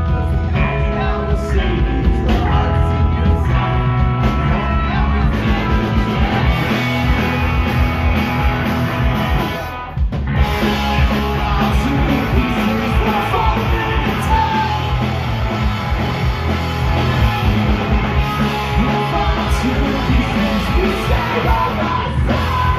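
Live punk rock band playing loud: distorted electric guitars, bass guitar and drum kit. About ten seconds in the band stops for a moment, then crashes back in.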